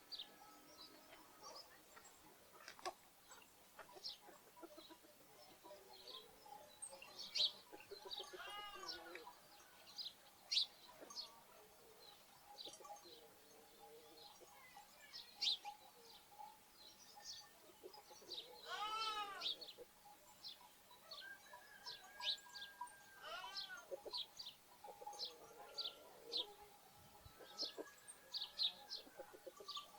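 Sparrows chirping in short high notes throughout, with a lamb bleating three times: once about a third of the way in, once a little past halfway, and once more a few seconds later.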